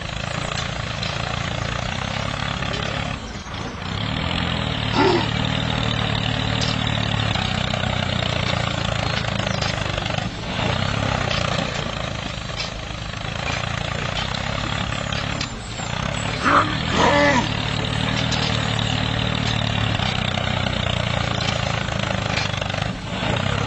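Tractor engine running steadily with a low rumble. Short higher-pitched sounds come through about five seconds in and again about seventeen seconds in.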